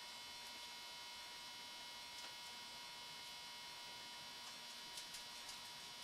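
Faint steady electrical hum in a quiet room, with a few small faint clicks about five seconds in.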